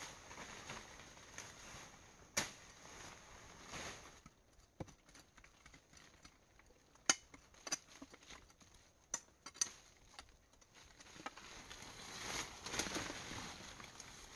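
Dry twigs and forest leaf litter being handled and cleared by hand: scattered sharp snaps and knocks, several close together in the middle, with rustling of leaves growing near the end.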